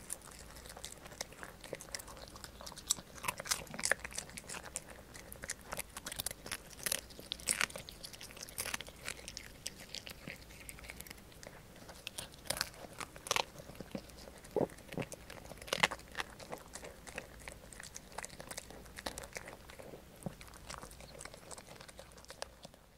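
A poodle biting and chewing a crisp dried-fish treat (salt-free dried big-eyed herring), with irregular crunches several times a second.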